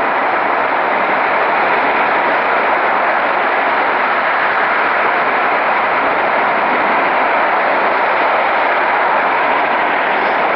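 Ruptured gas pipeline burning: a steady, unbroken rushing noise of gas jetting out and burning.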